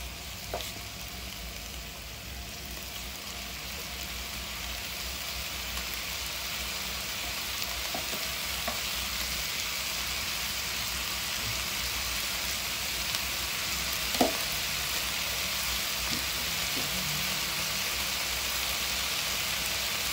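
Black-skinned chicken pieces sizzling as they sauté in a pot, the sizzle slowly growing louder. A few faint clicks, and one sharper knock about two-thirds of the way through.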